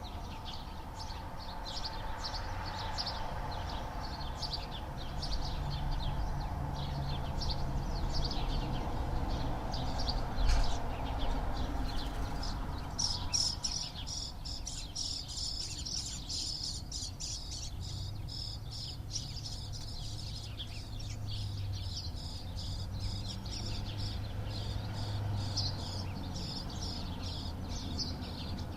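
Many small birds chirping: a busy chorus of short, high chirps that thickens about halfway through, over a steady low background hum. A brief thump comes about ten seconds in.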